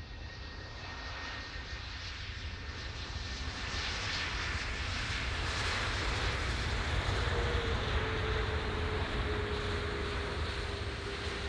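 Boeing 737 MAX 8's CFM LEAP-1B jet engines running as the airliner rolls along the runway. The rush grows steadily louder as the jet nears, with a thin whine that drops slightly in pitch about halfway through.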